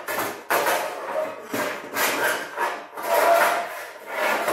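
Sheet-steel windmill sails scraping and rattling against a steel wheel band as they are slid onto it, in a series of rasping strokes.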